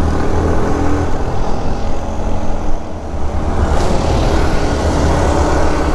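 Motorcycle engine running at highway cruising speed under heavy wind rush on the rider's microphone, with a steady low rumble.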